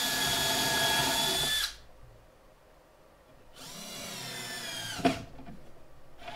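A cordless drill runs steadily at high speed, boring a pilot hole through a drawer slide's mounting hole into the drawer box, and stops about a second and a half in. About two seconds later a second, quieter drill run lasts about a second and a half and ends with a click.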